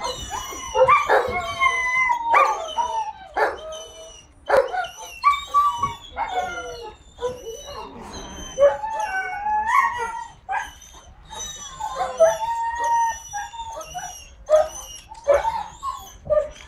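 Puppy yipping and whining over and over in short, high, pitch-bending calls while it tugs at a toy.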